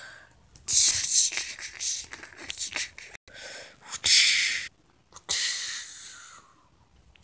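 Hissing, breathy mouth-made sound effects for a toy fight, in three bursts: a long uneven one, a short one, and a last one that fades out.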